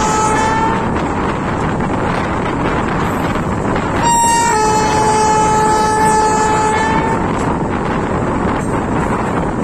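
Train's locomotive horn sounding: a blast that cuts off under a second in, a short higher note about four seconds in, then a long steady blast of about two and a half seconds. Underneath it, the steady rumble and wind of a passenger coach rolling slowly along the track.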